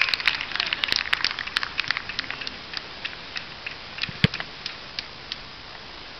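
Rapid crackling clicks, thick in the first two seconds and thinning out, with a single harder thump about four seconds in as a football comes in at the goalpost.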